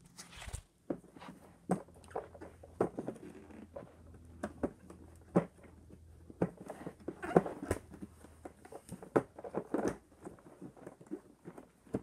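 Irregular plastic clicks and knocks as parts of a Hoover FloorMate Edge hard-floor cleaner are handled and a latched piece is worked free, the loudest knock about seven seconds in.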